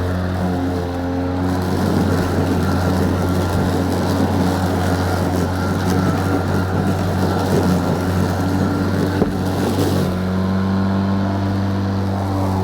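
EGO battery-powered lawnmower running with a steady low hum, turning rougher and noisier through most of the middle before settling back to the smoother hum near the end.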